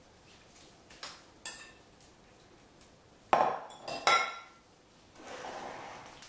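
Kitchenware clattering on a wooden table: a couple of light taps, then two sharp clanks about three and four seconds in as a mixing bowl with a metal whisk in it is set down, followed by a softer scraping as a glass gratin dish is shifted.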